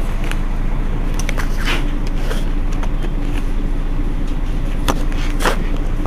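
Mercedes-Benz Citaro G articulated city bus's rear-mounted diesel engine idling steadily at a standstill, a constant low rumble, with a few brief sharp clicks and hisses over it.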